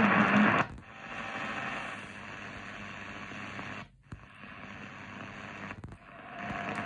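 Eton Field BT Grundig Edition radio being tuned across the AM medium-wave band. A station's audio cuts off about half a second in and gives way to static hiss, which drops out briefly twice as the frequency steps up, and the hiss rises again near the end.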